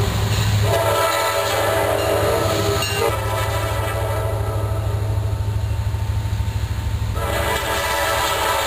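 Diesel locomotive running with a steady deep engine rumble, its horn sounding over it in a held chord that is brightest at the start and again from about seven seconds in.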